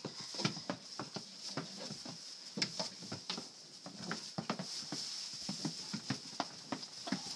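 Young Alpine goat bucks' hooves clattering and knocking irregularly on straw bedding and a wooden pen wall as they jump and scuffle in play.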